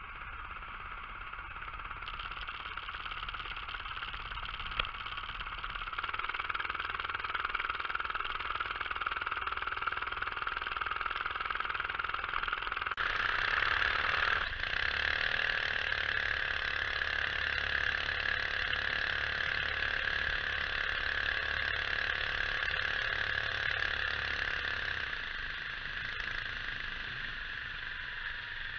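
Small 7 hp Predator single-cylinder engine running under way on a homemade ride-on machine, its pitch rising and falling with the throttle, mixed with rushing wind on the microphone. The sound changes abruptly several times.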